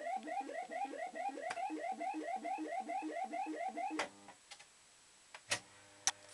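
Electronic sound effect from a Maygay Moon Bug fruit machine: a rapid run of short rising bleeps, about six a second, that stops with a clunk about four seconds in. A low hum and a few clicks follow near the end.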